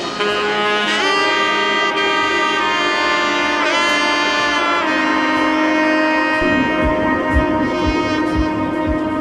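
Background music: long held melody notes in a wind-instrument sound over a sustained chord, with a steady low drum beat joining about two thirds of the way through.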